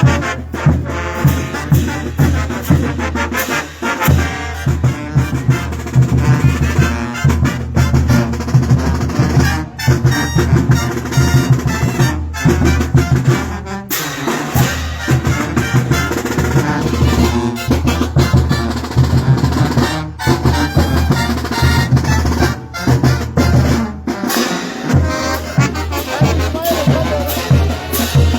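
A Bolivian brass band playing loudly, with brass and drums over a steady beat.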